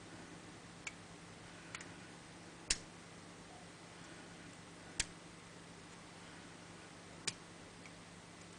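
Five small, sharp clicks at irregular intervals, the third the loudest, from a Squire four-lever padlock being picked with wire lever tools.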